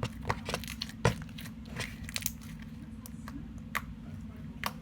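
Sticky, glossy mint slime being worked by hand, giving irregular small clicks and pops, the loudest about a second in, over a steady low hum.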